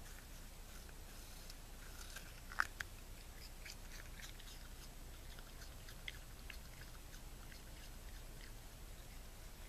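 Raccoon chewing an apple: a scattered run of small crunching and smacking clicks, with one louder crunch about two and a half seconds in.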